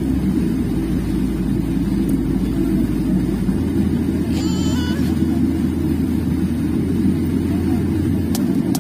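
Airliner cabin noise while taxiing: a steady low rumble of the jet engines and the rolling aircraft, heard from inside the cabin, with a brief faint high tone about halfway through.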